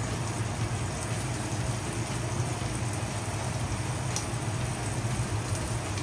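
Filet mignon searing in hot oil in a frying pan: a steady sizzle with a faint pop about four seconds in, over a steady low hum.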